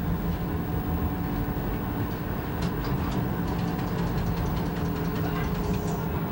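Saarbahn light-rail tram running on street track, heard from the driver's cab: a steady electric running hum with a few held tones, and a run of light clicks from the wheels on the rails about two and a half to four seconds in.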